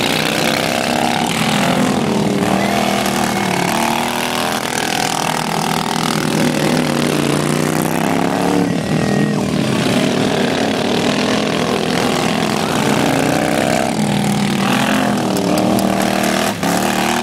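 Engines of several racing lawn mowers running hard around a track, overlapping, their pitch rising and falling as they speed up, slow and pass by.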